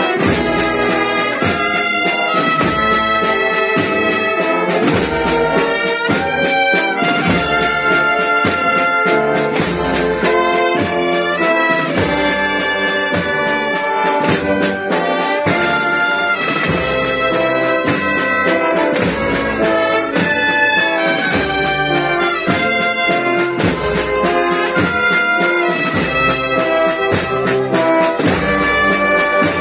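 Brass band playing a slow Holy Week processional march: held brass chords with a tuba close by, over a steady drum beat of about one stroke a second.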